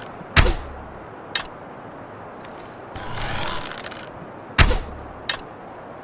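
An ornate bow loosed twice. Each shot is a sharp, loud snap with a low thump, followed less than a second later by a fainter click. Before the second shot there is a rasping swell of about a second, as the bow is drawn.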